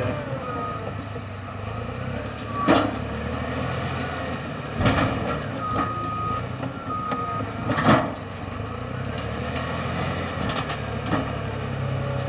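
Caterpillar D6T bulldozer's diesel engine running steadily, its reverse alarm beeping briefly near the start and again a little past the middle. Several heavy clanks and bangs from the machine at work stand out, the loudest about a third of the way in and again around two thirds.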